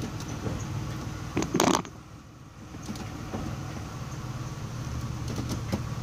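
2004 Pontiac Grand Prix GTP's supercharged 3.8-litre V6 idling, with a short loud clunk and rattle about a second and a half in as the automatic gear selector is moved into drive. A few light clicks come near the end.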